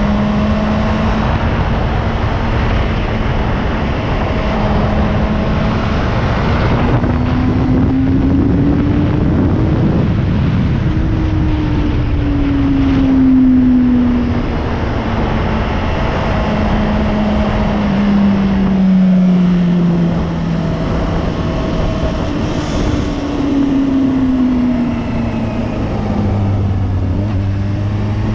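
Motorcycle engine under way, its note climbing and sinking several times as the revs change, over a steady rush of wind noise.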